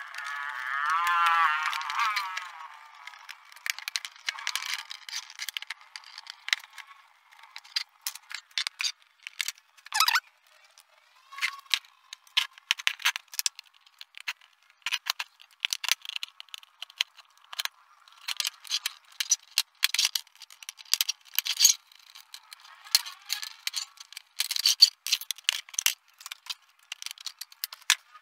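Plastic clicks, snaps and rattles from a Polytron PLD 24D123 LED TV being taken apart: the panel's plastic frame clips are prised loose and the diffuser sheets are handled, in many short, sharp clicks. A loud wavering, pitched sound fills the first two seconds.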